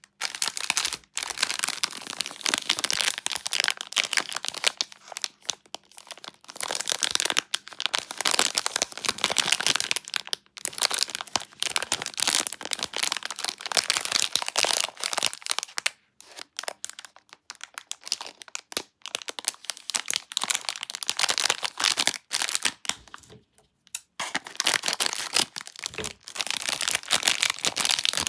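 Plastic wrapper of a Kinder Delice bar crinkling and tearing close up, in long runs of dense crackling broken by short pauses.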